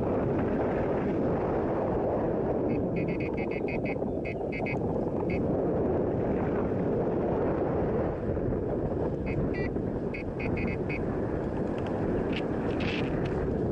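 Airflow rushing steadily over the microphone of a paraglider in flight. Over it, a variometer beeps in quick runs of short high beeps, about four a second: once a few seconds in, again past the middle, and briefly near the end.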